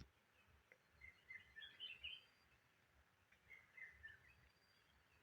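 Faint birdsong: two short spells of high chirping twitters, about a second in and again near four seconds in, over a quiet background hiss.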